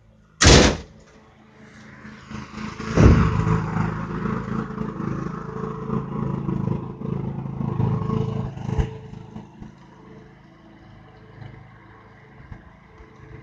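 Petrol walk-behind lawn mower engine running steadily, with a sharp knock about half a second in; the engine is loudest through the middle and fades near the end.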